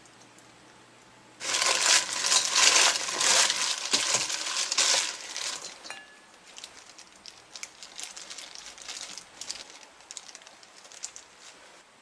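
Sliced onion and radish microgreens being tossed with marinade in a stainless steel bowl: a loud, dense crackling rustle starting about a second and a half in and lasting about four seconds, then softer, scattered crackles.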